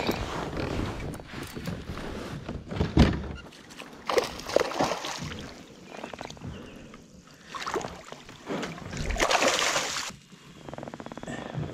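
A hooked largemouth bass splashing and thrashing in the water beside a kayak as it is brought in and landed, with irregular sloshes and knocks against the hull. The longest burst of splashing comes about nine seconds in.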